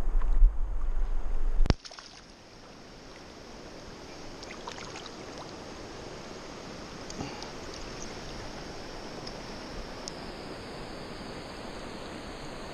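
A loud low rumble that cuts off sharply with a click a little under two seconds in. It gives way to the steady rushing of a shallow stream flowing over stones.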